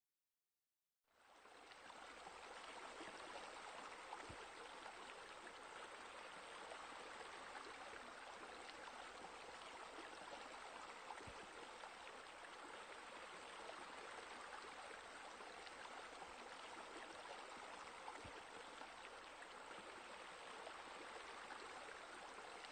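Faint, steady rush of running water, like a stream or pool water feature, fading in about a second in and holding even throughout.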